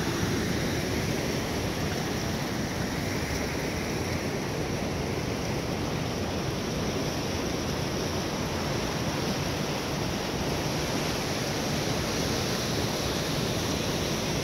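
Steady rush of river water over rapids among granite boulders, an even noise that holds level throughout.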